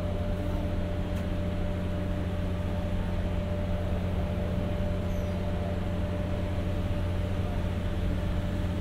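Diesel generator carried in an ex-203-series commuter car running steadily, giving a constant low hum with a steady higher tone over it. It supplies the car's onboard power.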